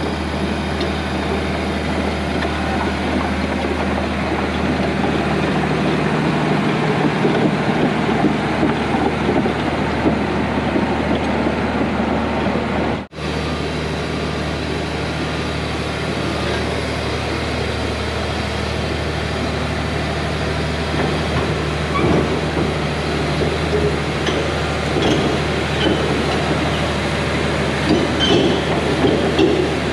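John Deere 850J crawler dozer's diesel engine running steadily as the machine travels, with the clatter of its steel tracks. The sound cuts out briefly partway through, and the track clanking grows more frequent near the end as the dozer comes close.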